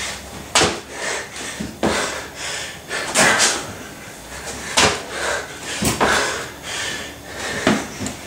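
A man doing burpees on a gym floor: sharp slaps and thuds as his body drops to the floor and he jumps and lands, about five in all, between loud, heavy breaths.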